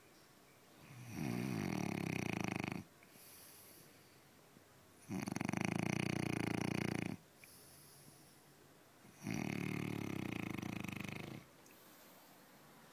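Snoring: three long snores about four seconds apart, each lasting about two seconds, with quieter breathing between.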